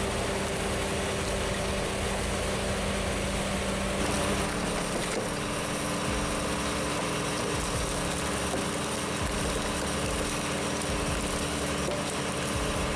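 Firewood processing machine's engine and hydraulics running steadily, with the hum shifting to a different pitch about four seconds in.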